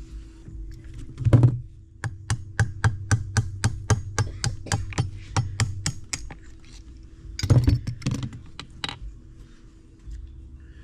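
A thunk, then a ratchet wrench clicking in an even run of about five clicks a second as it works a bolt on the engine case. A short clatter of metal tools follows near the end.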